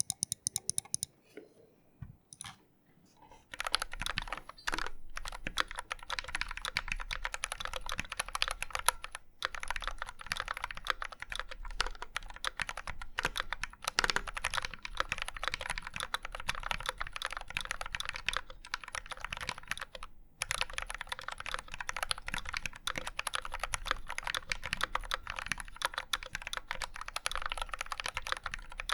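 Typing sound test on a KBD67 MKII mechanical keyboard with Gateron Black Ink v2 linear switches lubed with Krytox 205g0 and EPBT ABS keycaps, its aluminium case dampened with craft foam. A few separate keystrokes come first, then rapid continuous typing with a few brief pauses.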